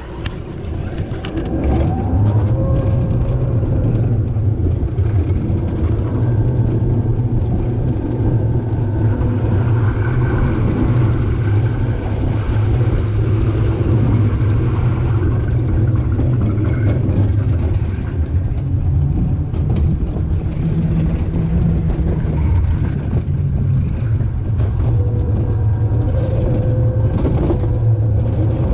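Summer toboggan sled running fast down a stainless steel trough, a steady loud rumble that builds up over the first two seconds and then holds.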